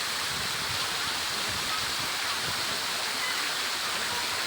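Steady rushing of falling water from a water-park water feature, a continuous even hiss with no breaks.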